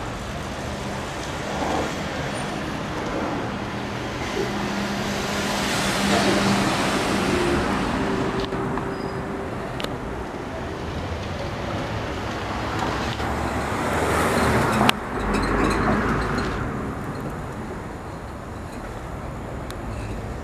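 Road traffic passing on a nearby street: a steady rushing noise with a low engine hum, swelling twice as vehicles go by. A single sharp click about three-quarters of the way through.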